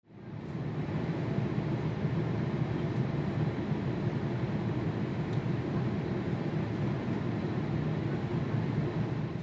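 Steady low rushing noise of an airliner cabin in flight, the engines and airflow heard from inside the plane. It fades in over about a second and begins to fade near the end.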